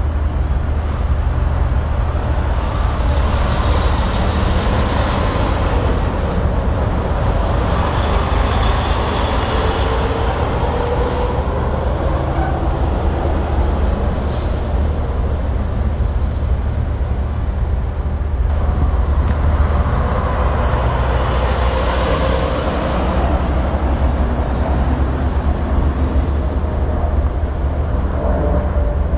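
Diesel freight train running, a loud steady low rumble, with faint gliding whines twice.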